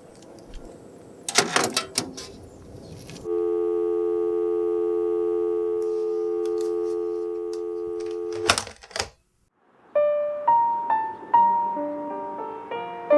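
Telephone handset clatter, then a steady telephone dial tone for about five seconds after the caller has hung up. Another sharp clatter comes as the handset goes down, then a moment of silence, and piano music begins near the end.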